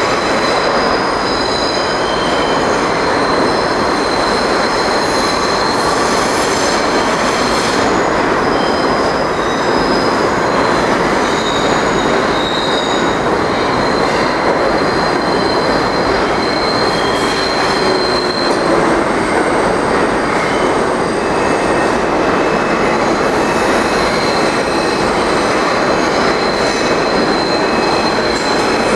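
R46 subway train running into a station: a steady, loud rumble of steel wheels on rail, with high-pitched wheel squeals that come and go over it.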